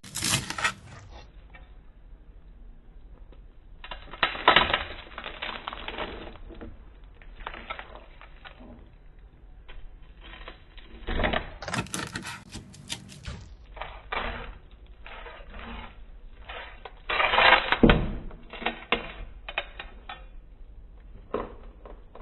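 Crackling crunch of deep-fried crispy pata pork skin breaking up, in three louder bursts of rapid crackles with lighter scattered crackles between.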